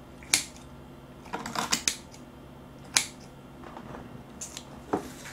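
Kitchen scissors snipping through braised seafood on a plate: a handful of short, sharp snips, spaced out, with a quick cluster of them about a second and a half in.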